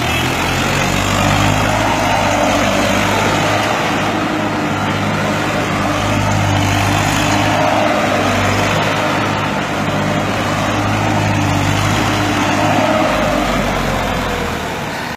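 Massey Ferguson 35 tractor engine running steadily and loudly under load as the tractor spins in tight circles on loose dirt.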